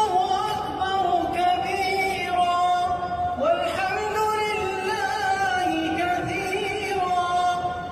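A solo voice singing a melodic, Middle Eastern-style chant in long held, slightly wavering notes. A new phrase slides up into its first note about three and a half seconds in.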